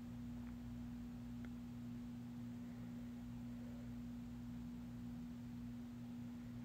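A faint steady hum on a single low pitch, with two light ticks about half a second and a second and a half in.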